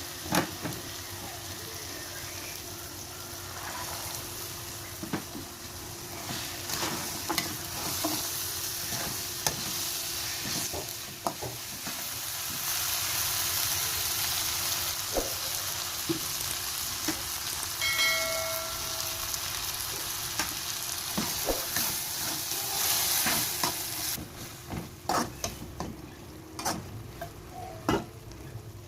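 Food stir-frying in hot oil in a pan: steady sizzling with frequent clicks and scrapes of a utensil stirring it. The sizzle dies down about 24 seconds in while the stirring clicks go on.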